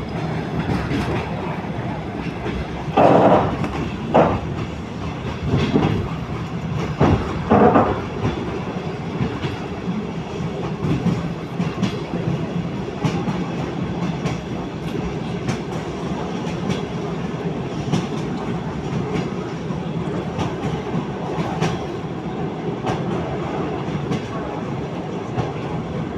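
Railway carriage wheels clattering over the rail joints: a steady rumble with repeated sharp clicks, and a few louder bursts about three and seven seconds in.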